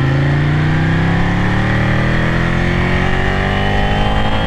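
Ducati sport bike engine accelerating hard through one gear, its pitch rising steadily as road speed climbs.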